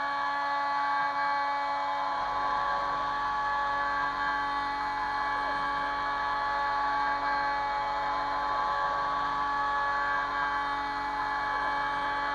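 Kress FME 800 router spindle on a Stepcraft 2/420 CNC machine running at about 11,000 rpm and milling aluminium: a steady high whine with cutting noise. A lower hum joins about two seconds in.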